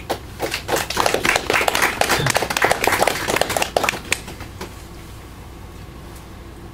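A small audience applauding: a handful of people clapping, the claps thinning out and stopping about four and a half seconds in.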